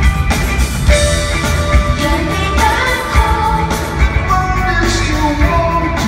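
Live rock band playing a slow, heavy song: a man singing a long melody line over regular drum hits, bass and keyboards, heard from among the audience in a large arena.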